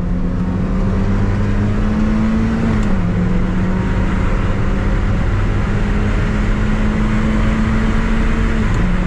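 Mazda MX-5's 1.8-litre four-cylinder (NB VVT) engine pulling hard at high revs on track, heard from the driver's helmet camera over wind and tyre noise. The pitch climbs slowly and dips a step twice, about three seconds in and near the end.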